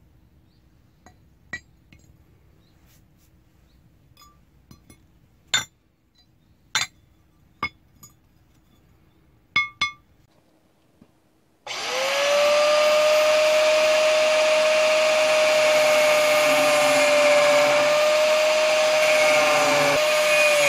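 Parts of a rusty ball bearing clinking and knocking against a steel anvil as they are handled: a dozen or so sharp, spaced-out metallic clinks. About twelve seconds in, an angle grinder starts, spins up to a steady high whine and cuts into the bearing's steel outer ring.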